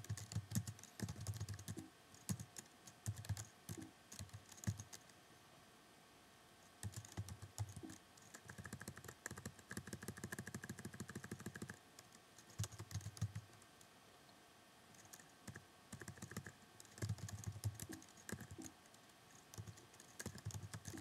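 Typing on a computer keyboard: quiet key clicks in short bursts, broken by pauses of a second or two.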